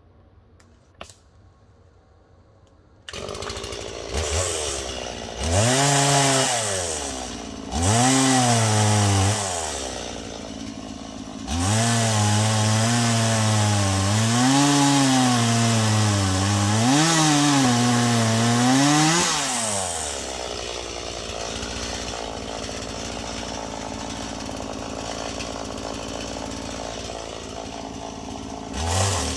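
Stihl two-stroke chainsaw starting about three seconds in, then revving up and down several times, its engine pitch rising and falling. It settles to a steady, quieter idle for the last several seconds and revs again at the very end.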